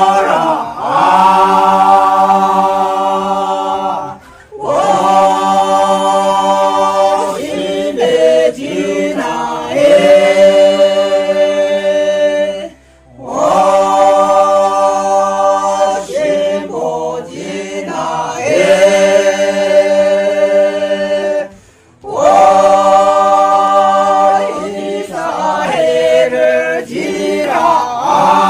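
Unaccompanied singing in long held notes, broken by a few short pauses.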